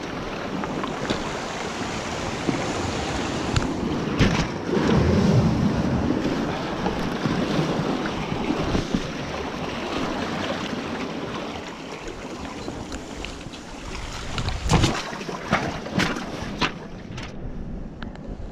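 Sea water washing and waves breaking along a rocky shore, with wind buffeting the microphone; the wash swells about four to six seconds in. A few sharp knocks come near the end.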